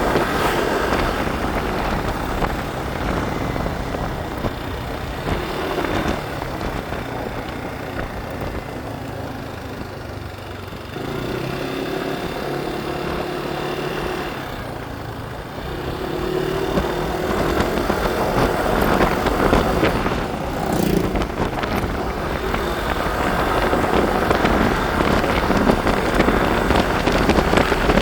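Motorbike running along a road, its engine note heard through road and wind noise, louder in the second half.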